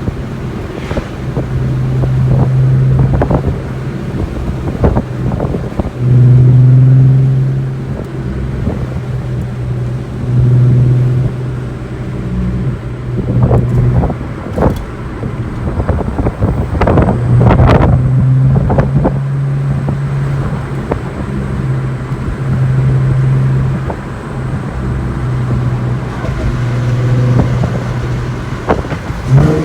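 2008 Volkswagen Golf R32's 3.2-litre VR6 engine running at fairly steady revs as the car is driven, its drone swelling louder for a couple of seconds at a time, with scattered short knocks.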